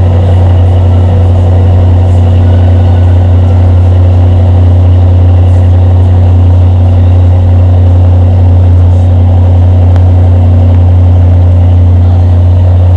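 Jaguar F-Type's exhaust idling, taken close to its quad tailpipes: a loud, steady, deep drone that does not rise or fall.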